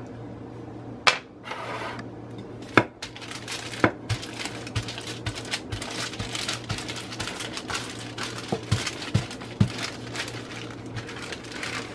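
Wooden rolling pin rolled back and forth over chilled shortbread dough on parchment paper, the paper crackling and rustling under it. A few sharp knocks come in the first few seconds.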